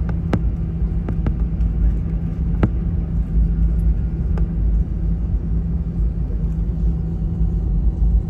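Cabin noise of an Airbus A320 taxiing: a steady low rumble and hum from the engines and rolling airframe, with a few short sharp clicks in the first few seconds.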